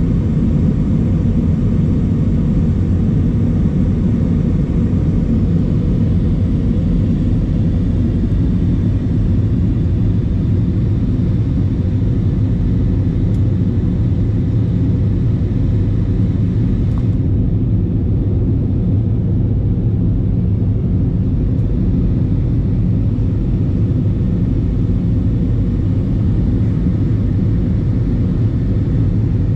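Cabin noise of an Airbus A320 in flight, heard from a passenger seat: a loud, steady low rumble of engines and airflow. The higher hiss dies down somewhat about halfway through.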